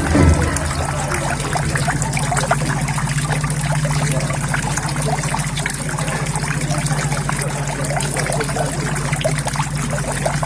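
Water running and splashing steadily into a koi pond, a dense patter of small splashes over a low, steady hum. A brief low thump sounds right at the start.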